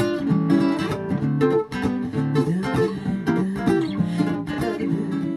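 Acoustic guitar played live, a run of picked and strummed notes.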